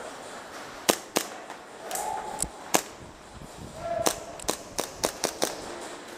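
Airsoft guns firing in close-quarters play: about a dozen sharp cracks at irregular spacing, coming faster a little after four seconds in.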